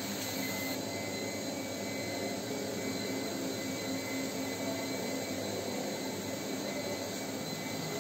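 Steady din of production machinery running on a factory floor: a constant mechanical hum with a thin, steady high whine over it.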